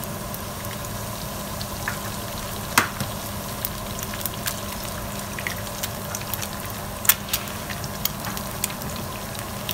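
Hot oil sizzling and crackling in a nonstick frying pan with sliced onion as two eggs are cracked in, with many small pops throughout. Two louder clicks, about three and seven seconds in, come as each egg is cracked.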